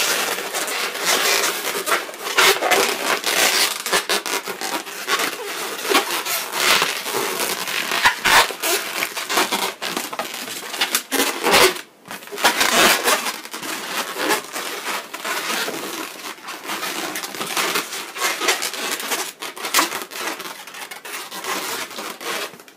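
Inflated latex twisting balloons rubbing and squeaking against each other and the hands as they are twisted and locked together into a balloon figure: a near-continuous scraping with many short sharp squeaks, pausing briefly about twelve seconds in.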